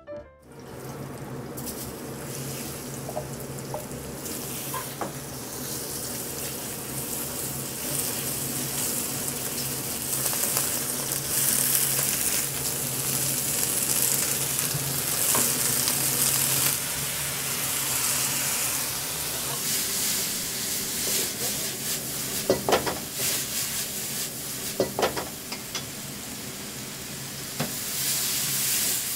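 Liver, bean sprouts and vegetables sizzling as they are stir-fried in a wok over a gas burner, the sizzle swelling louder about ten seconds in. A steady low hum runs beneath, with a few sharp knocks near the end as the food is tossed.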